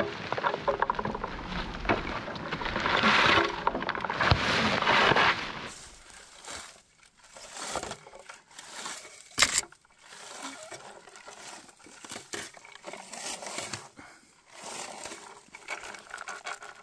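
Rustling and crinkling of low blueberry bushes being handled and picked close to the microphone, louder for the first six seconds. After that come scattered small crackles and clicks.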